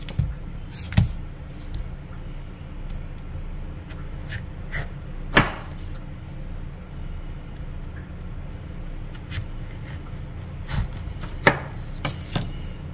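A kitchen knife is cutting through a large zucchini on a plastic cutting board. There are a handful of separate knocks as the blade meets the board, the loudest about five seconds in and several close together near the end, over a low steady hum.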